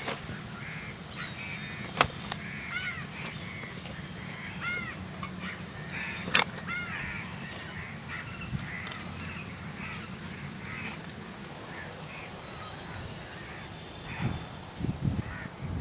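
Birds calling over and over in short, arched calls, with a couple of sharp clicks along the way and a few dull bumps near the end.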